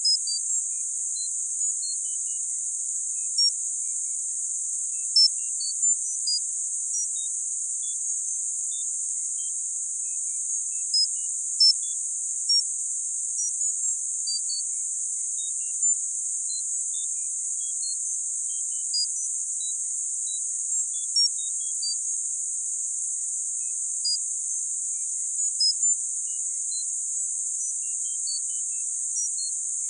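Tinnitus sound-therapy signal: a steady, narrow, very high-pitched hiss with short high beeps at different pitches scattered at random through it, a couple a second.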